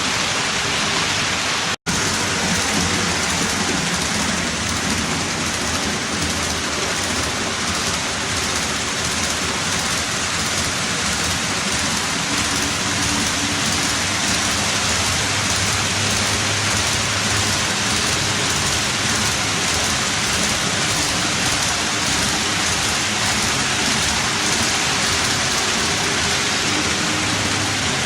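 HO-scale model train of three Athearn diesel locomotives and mechanical reefer cars running on the layout: a steady rushing of wheels on rail with a low, wavering motor hum. The sound cuts out for a split second about two seconds in.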